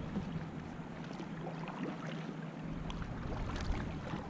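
Water splashing, dripping and lapping around a kayak being paddled on a river, with many small splashes. A low steady hum underneath fades away through the middle and returns near the end.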